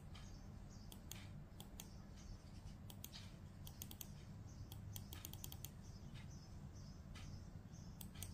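Computer mouse clicking: irregular single clicks with a quick run of clicks about five seconds in, over a faint low hum.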